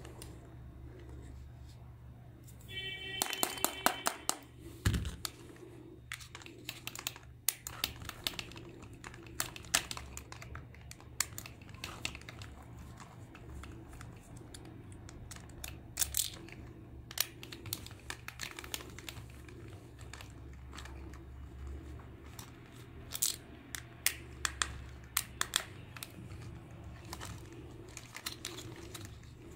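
Irregular small clicks and taps of tweezers and fingers handling a plastic toy housing and its wires, over a low steady hum. A brief pitched tone sounds about three seconds in.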